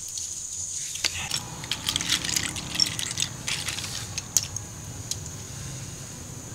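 A quick, irregular run of sharp clicks and clinks from hard snail shells knocking together as they are handled. It starts about a second in and dies down past the middle.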